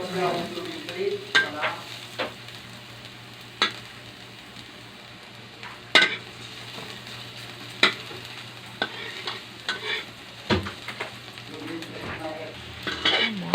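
Onion and garlic sizzling in hot cooking oil as they brown in a pan. A utensil stirring them knocks and scrapes against the pan now and then.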